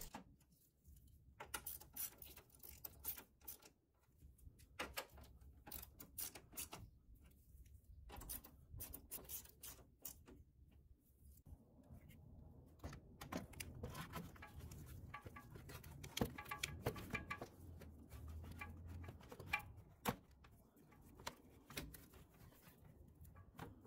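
Faint clicking of a ratchet wrench tightening the radiator support bracket bolts, in several spells of rapid clicks, followed by light knocks and clatter of plastic parts being handled as a cooling fan is fitted.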